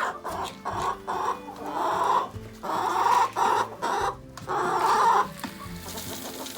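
Chickens clucking and squawking in a run of about seven loud calls, which die down a little past five seconds in.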